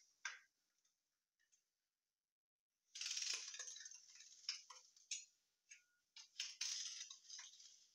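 Knife blade scoring cardboard along a steel ruler: one short scratch just after the start, then after a pause a longer scratching cut about three seconds in, followed by a run of short scratching strokes.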